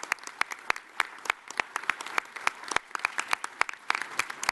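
Applause from hands clapping close to the microphones: sharp, separate claps several times a second over a faint background.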